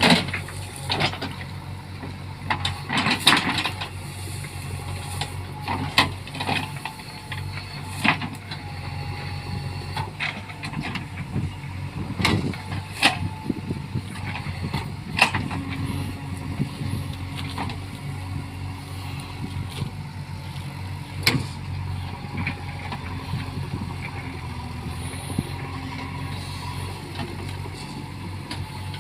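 JCB backhoe loader's diesel engine running steadily, with scattered sharp cracks and knocks, the loudest about three seconds in, around twelve to thirteen seconds in and near twenty-one seconds in.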